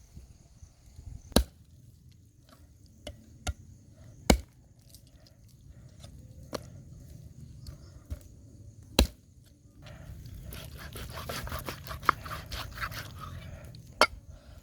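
Knife chopping on a wooden board: single hard chops a few seconds apart, with lighter knocks between them. About two-thirds of the way through comes a dense stretch of rapid small scraping and clicking.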